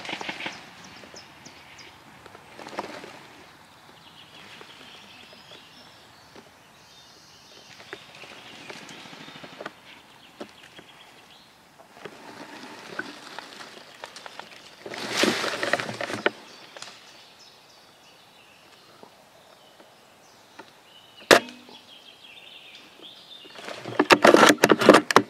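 Rustling and crunching of dry leaves and undergrowth as a person moves through woodland, in several bursts: a loud one about fifteen seconds in and the loudest near the end. A single sharp crack sounds about twenty-one seconds in.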